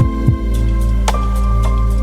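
Background music: held synthesizer tones with deep, falling bass thumps and a sharp click about a second in.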